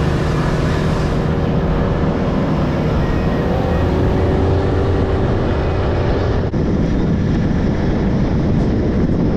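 A boat's outboard motor running at speed, with wind rushing over the microphone. There is a brief break about two-thirds of the way in.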